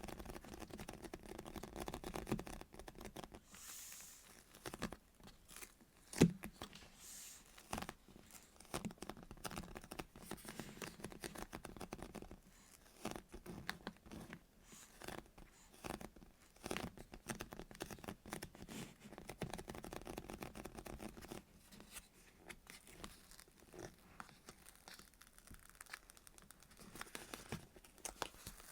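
Close-miked squishy toys being handled and squeezed, with soft crinkling, scratching and tearing-like rustles and a sharp click about six seconds in.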